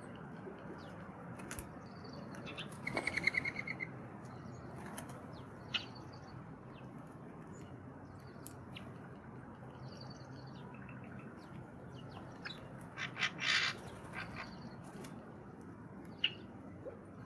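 Quail and other small ground-feeding birds: short high call notes scattered throughout, and two brief bursts of rapid fluttering, about three seconds in and again, loudest, around thirteen seconds in.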